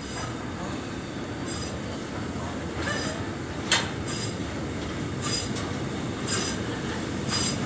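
Freight train of cement tank wagons rolling past: a steady rumble of steel wheels on rail, with short high-pitched wheel squeals about once a second and one sharp clack about halfway through.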